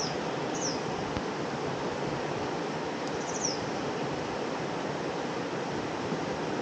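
Steady rush of river water, with three short falling-pitched bird chirps, two in the first second and one about three seconds in.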